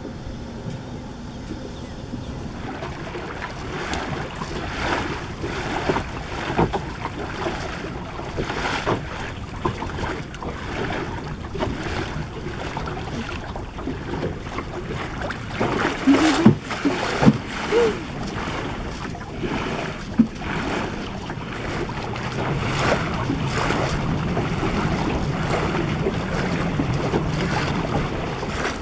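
Water splashing and slapping against the hull of a small wooden Melonseed sailing skiff moving through chop, with wind buffeting the microphone. A few short squeaky sounds stand out about halfway through, and the wind rumble grows steadier near the end.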